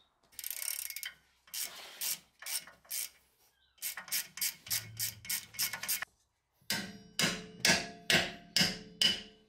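Metal tools knocking on a Brembo six-piston brake caliper as its cross pin is worked out: a run of sharp clicks and knocks, then louder ringing metal strikes about twice a second near the end.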